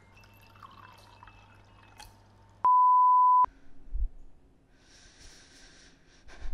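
A single loud electronic beep: one pure, steady tone held for just under a second, switching on and off abruptly about two and a half seconds in. Faint small clicks come before it, and a soft low thump and a quiet hiss follow.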